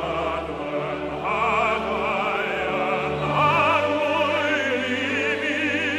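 Opera music: a singer holding sustained notes with wide vibrato over sustained accompaniment.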